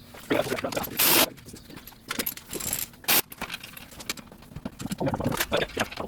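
Metal tools and car parts clinking and scraping while a rear hub assembly is taken apart, with a short, loud rasping noise about a second in and a clatter of clicks near the end.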